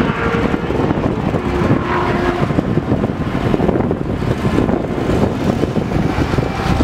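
Oshkosh M984A4 HEMTT wrecker's diesel engine running steadily, a dense low rumble, as the truck waits at the start of a truck pull.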